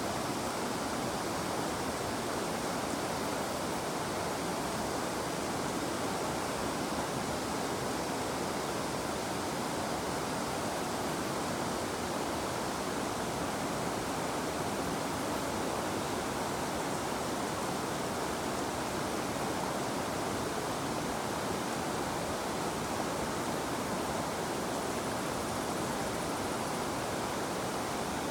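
River water flowing and rushing steadily, an unbroken even rush with no changes.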